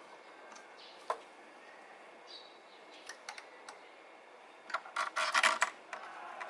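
Hand tools and small metal parts clicking and clattering during engine work: a few single clicks, then a dense rattle of clicks about five seconds in, the loudest part.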